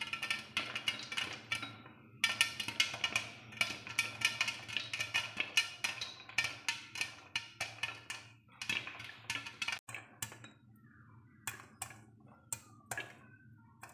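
Popcorn kernels popping in a covered pot with a glass lid: rapid, dense popping that thins to a few scattered pops about ten seconds in, the sign that the batch is nearly done. A faint steady hum runs underneath.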